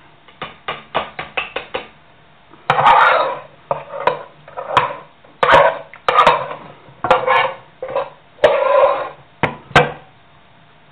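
A utensil scraping and knocking in a cooking pot: first a quick run of light clicks, then about ten longer scrapes, each with a sharp knock at its start.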